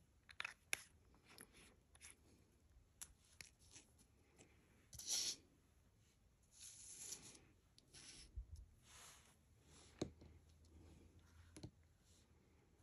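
Faint handling sounds of small jewelry and testing items: a few light clicks and short rubbing scrapes, the loudest scrape about five seconds in.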